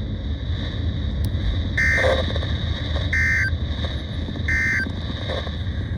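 Emergency Alert System end-of-message signal: three short bursts of digital data tones about a second and a half apart, played over a radio receiver with a steady hum and hiss underneath.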